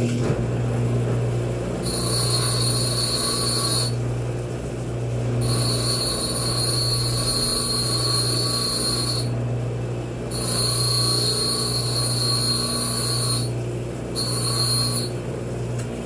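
An electric motor hums steadily while the dented threaded end of a fan shaft is ground down to a cone. A high-pitched grinding whine comes and goes four times as the metal is worked.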